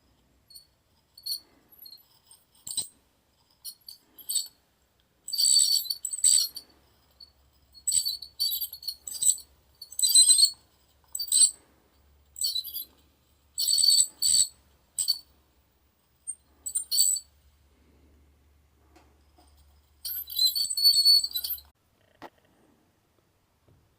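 A dental cleaning tool scraping against teeth in short, high-pitched strokes, repeated on and off with pauses between them. The longest run of scraping comes near the end.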